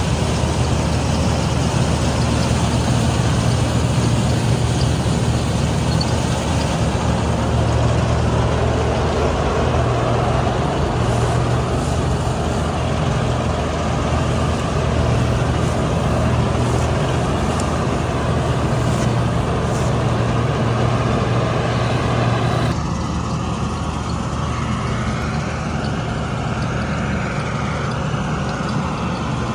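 Combine harvester's diesel engine running steadily, a low drone under a mechanical rush. About two-thirds of the way through it abruptly becomes slightly quieter and duller.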